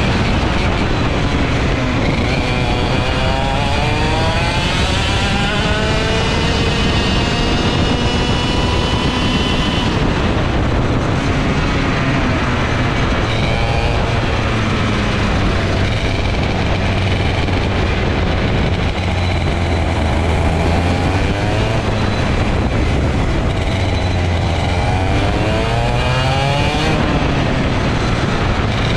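ROK GP 125cc two-stroke TaG kart engine at full race pace, its note climbing in pitch as it accelerates, falling sharply about a third of the way through as the revs drop for a corner, then climbing again several times.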